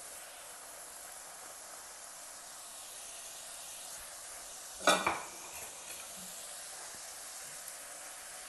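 Papri (flour-dough discs) deep-frying in oil on low heat: a steady sizzle. About five seconds in comes a sharp metal clatter, the loudest sound, followed by a few lighter clinks as a slotted metal turner stirs the discs in the pan.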